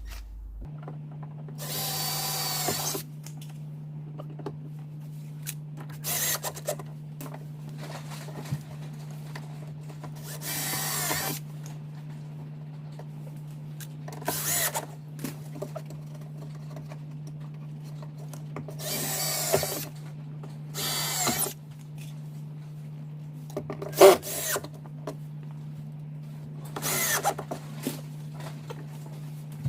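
Power drill run in short bursts, about eight times, each for a second or so, drilling to fix a speaker mounting ring in a car door. A steady low hum runs underneath, and there is a sharp knock near the end.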